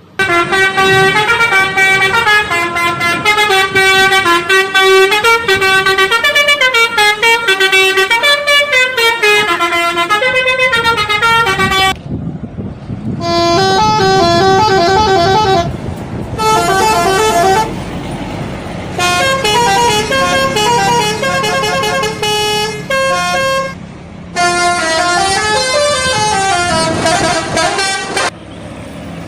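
Indonesian bus telolet horn, a multi-trumpet musical horn, playing quick melodic runs of stepping notes. It plays unbroken for about twelve seconds, then in several shorter runs with brief gaps between them, over a low rumble.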